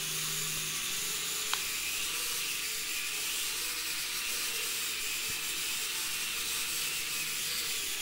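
Mini toy quadcopter's small motors and propellers running steadily while it hovers and spins in place, a constant whirring hiss with a faint low hum, and one light click about a second and a half in.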